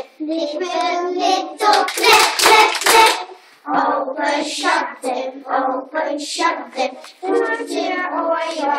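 A group of young children singing an English children's song together, clapping their hands along.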